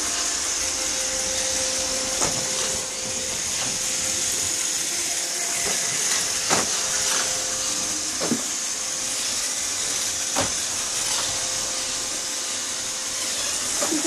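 Roomba robot vacuum running: a steady hiss of its motor and brushes with a faint steady tone under it, and a few sharp knocks spread through.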